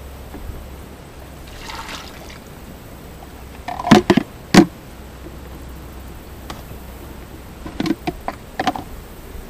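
Hard plastic clunks as a plastic pitcher and a plastic feeder part are handled: two loud knocks about half a second apart near the middle and a few lighter ones near the end. A brief trickle of liquid comes before them.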